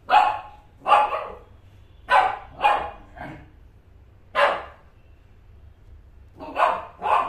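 Shih Tzu barking up at a person: about eight short barks, mostly in pairs half a second apart with pauses between. They are demand barks, asking to play.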